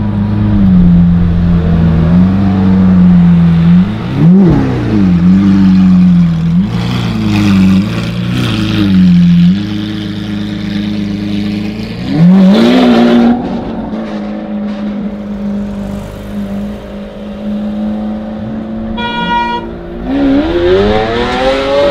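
Lamborghini Aventador's V12 through an Akrapovic exhaust, running at low speed with sharp throttle blips about four seconds in and again around twelve seconds, steady between them, then revving up near the end. A brief high beep sounds shortly before the final rev.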